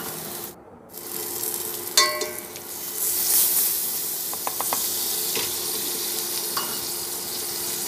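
Chopped onion sizzling as it fries in hot oil and margarine in a pan, stirred with a spoon that clicks against the pan now and then. The sound briefly drops out about half a second in.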